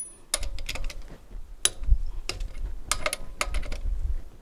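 Torque wrench ratchet clicking in short, uneven strokes, with metal clinks of socket on lug nuts as the nuts are run onto the wheel studs, over a low rumble.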